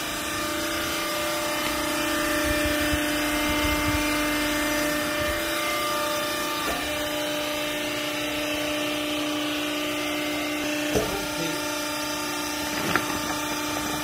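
Hydraulic baler's electric motor and pump running, a steady, even hum, with two short knocks near the end.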